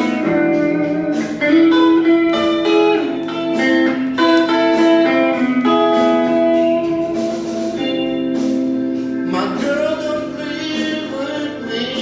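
Guitar playing an improvised blues solo, a run of held notes with one note bent upward about three quarters of the way through.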